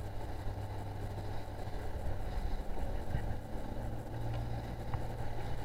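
Outboard motor of an inflatable coach boat running steadily, a constant low hum, with wind and water noise over it.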